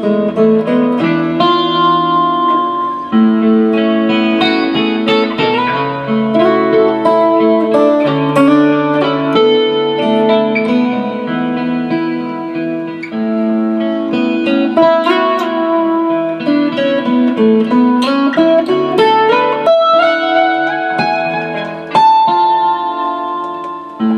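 Martin GPC acoustic-electric guitar played through its pickup: plucked single-note melody and chord tones over a looped A major backing, a steady run of notes.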